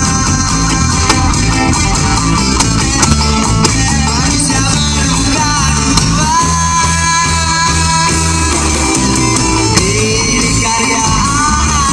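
Rock band playing loudly and steadily: electric guitar, bass and drums, with held melody notes that bend in pitch.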